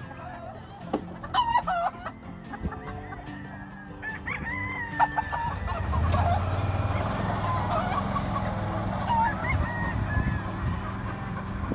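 Roosters crowing and clucking, several wavering calls overlapping. About halfway through, the low steady running of a side-by-side utility vehicle's engine comes in under the birds as it pulls away.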